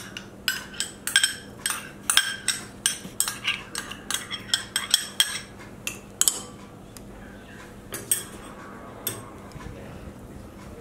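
Metal spoon stirring sour yogurt in a ceramic bowl, clinking against the bowl in quick repeated knocks for about five seconds, then only a few scattered clinks.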